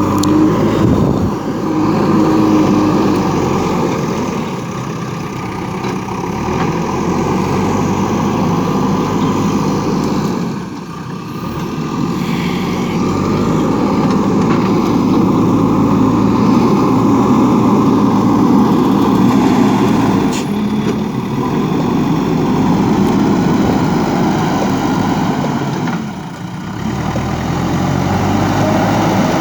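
JCB 3DX backhoe loader's diesel engine running as the machine works, its level rising and falling with the load and dipping briefly twice, about a third of the way in and near the end.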